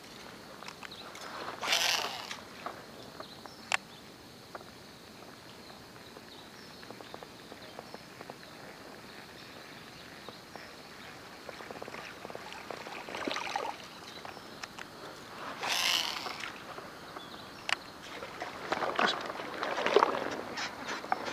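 Water splashing a few times alongside a small fishing boat, the splashes coming about 2 s in, around the middle and again near the end, with a couple of sharp clicks in between.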